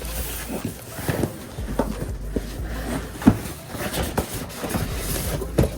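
Cardboard packaging being handled: irregular knocks, taps and scuffs as the buggy kit is taken out of its shipping box, with a sharper knock about three seconds in and another near the end.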